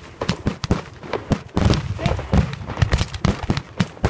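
Aerial fireworks shells bursting in a rapid, irregular string of sharp bangs, several a second.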